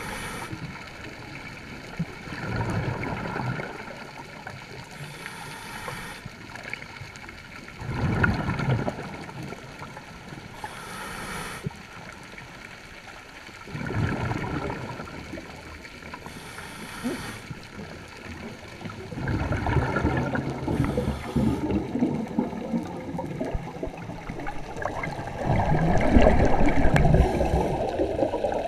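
Muffled underwater sound picked up by a submerged camera: water rushing and bubbling, rising in swells every five to six seconds with short hisses between them, and growing louder and churning with bubbles near the end as the divers reach the surface.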